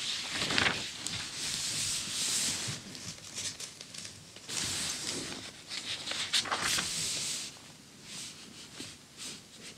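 Paper pages of a vintage 1940 magazine being turned and smoothed flat by hand: two stretches of rustling and rubbing paper with a few sharp crackles, then a few faint ticks near the end.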